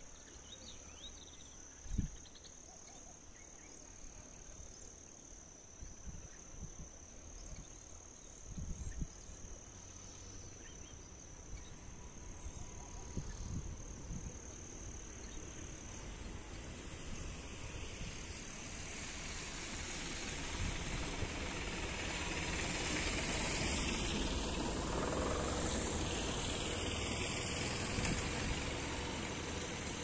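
A steady high-pitched insect trill over outdoor ambience, with a few low thumps early on. From about halfway, the noise of a passing vehicle slowly swells, is loudest in the last third and begins to fade near the end.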